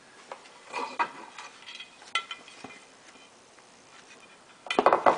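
Metal clinks and knocks as the bottom cover (sump) of a Briggs & Stratton mower engine is worked loose and lifted off, with a loud clatter of metal parts near the end.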